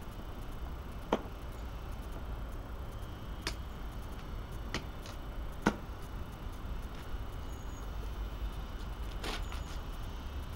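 A few light, sharp wooden knocks and clicks, five in all, as small pieces of wood and a hatchet are handled on a tree-stump chopping block, the loudest a little past halfway. A steady low rumble runs underneath.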